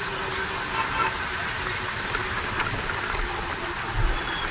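Steady running noise of a bus: engine and road noise together, with a faint steady hum.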